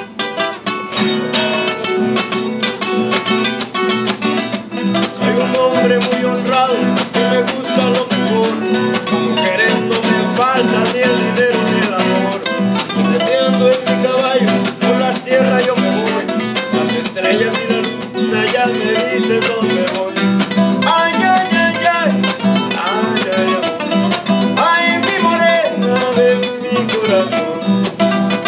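Two acoustic guitars playing an instrumental Mexican-style passage: a steady strummed rhythm with a picked melody line over it, without singing.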